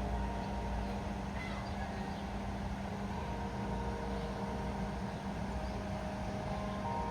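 Church bells ringing: several bell tones at different pitches sound one after another and hang on, fairly faint over a steady low hum and rumble.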